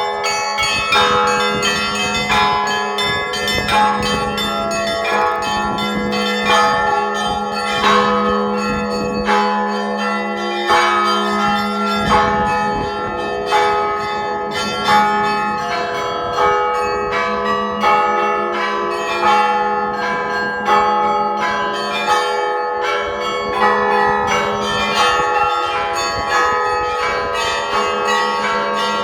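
Russian Orthodox church bell ringing (zvon): a peal of several bells of different pitches, the small bells struck in a quick, dense rhythm over the steady hum of a larger bell, with regular accented strokes.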